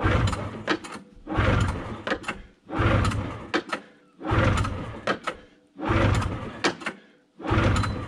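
Yamaha V-Max 540 snowmobile's two-stroke twin engine being pull-started on full choke: six hard pulls of the recoil starter, about one and a half seconds apart, each a short rush of cranking followed by a few light clicks as the rope rewinds. The engine cranks but does not fire.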